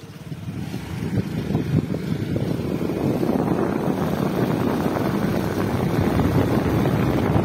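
A motorcycle running along a road, its engine mixed with wind rushing over the microphone. The sound grows louder over the first few seconds as the bike picks up speed, then stays steady.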